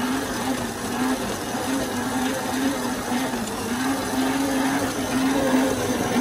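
Electric stand mixer running steadily with its dough hook kneading dough in a stainless steel bowl, the dough just coming together. The motor hum wavers slightly in pitch as the hook drags through the dough.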